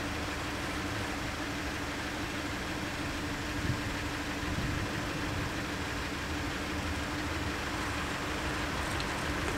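Car engine idling steadily with a low hum.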